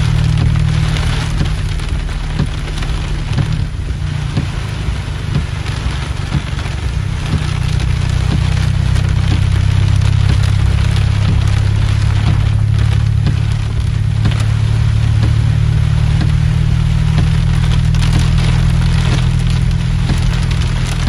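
Heavy rain pelting a car's windshield and roof, heard from inside the car: a dense crackle of drops over a steady low rumble that swells for a few seconds midway.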